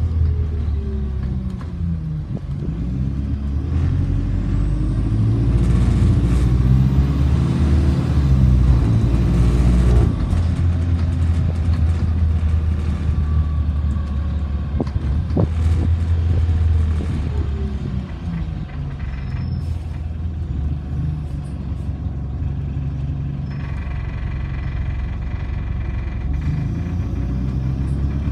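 Diesel engine of an Alexander Dennis Enviro400 double-decker bus, converted from gas to diesel, heard from the upper deck as the bus drives. The engine note rises and falls as it pulls through the gears, with a steady deep drone between rises and a single sharp knock about halfway through.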